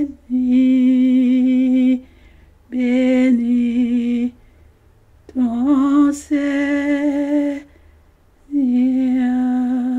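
A single unaccompanied voice humming long held notes with a slight vibrato, in four phrases of one to two seconds each separated by short breaths.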